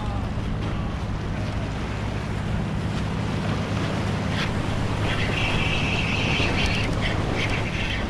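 Waves washing over jetty rocks and wind buffeting the microphone, under the steady hum of a boat engine running in the inlet. From about five seconds in, a high whirring comes and goes.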